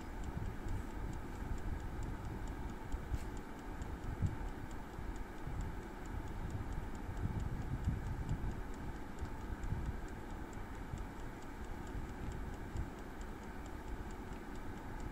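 Air fryer's clockwork dial timer ticking steadily as it counts down a cooking cycle, over a low rushing noise.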